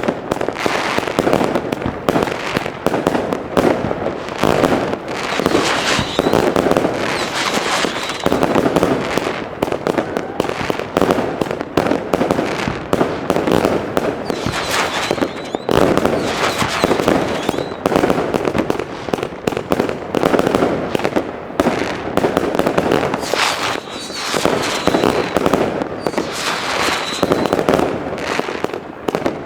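Iskra Berserk firework battery firing: a dense, continuous run of shots and crackling bursts, with a few short high whistles.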